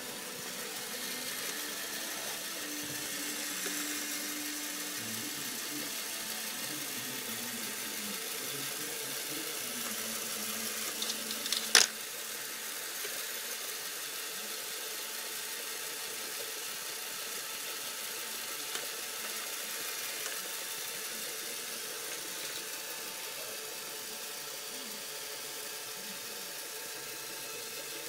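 Lego Power Functions electric motor running steadily, driving the chain of a Lego ski lift, with a steady whine. A single sharp knock comes about twelve seconds in.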